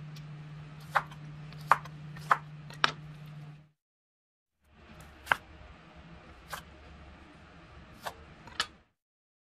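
Kitchen knife cutting through pineapple and then tomato on a plastic cutting board: sharp knocks of the blade hitting the board, four in about two seconds, then after a short break a few more spaced out. A steady low hum sits under the first few cuts.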